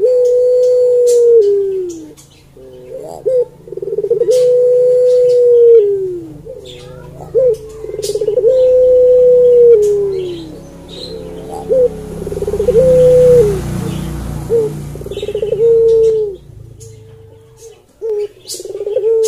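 Barbary dove (puter pelung) cooing repeatedly. Each call is a short lead-in, a long held note and a falling tail, coming every three to four seconds.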